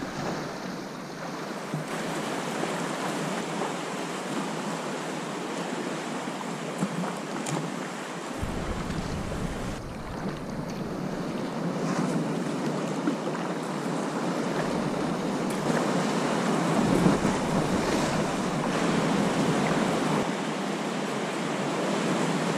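Sea swell washing and lapping against rock around a sea kayak, a steady wash of water, with wind buffeting the microphone now and then.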